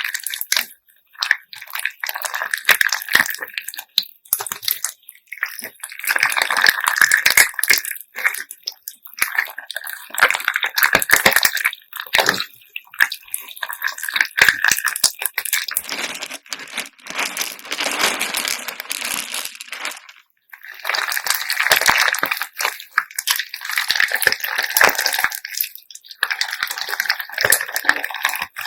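Slime mixed with assorted beads being pressed, squeezed and stretched by hand: many small clicks and clattering of the beads over sticky, wet crackling. It comes in stretches of a few seconds with short pauses between.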